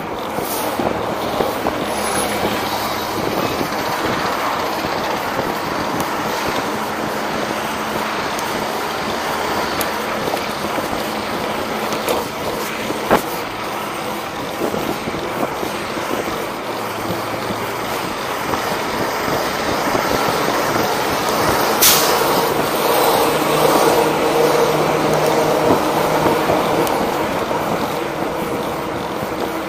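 Wind rushing over the microphone of a moving ride and a knobby tyre rolling over concrete sidewalk, with street traffic. There is a sharp click near the middle and a louder knock about three-quarters through.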